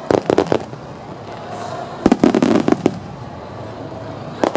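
Starmine aerial fireworks bursting in quick clusters of sharp bangs: several at once at the start, another cluster about two seconds in, and a single burst near the end.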